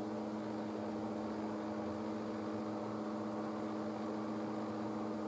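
Steady electrical hum: several constant low tones over a faint hiss, unchanging.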